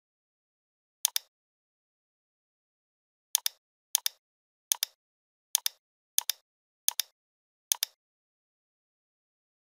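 Computer mouse button clicking eight times, each click a quick double tick of press and release. One comes about a second in, then a run of seven comes roughly every two-thirds of a second.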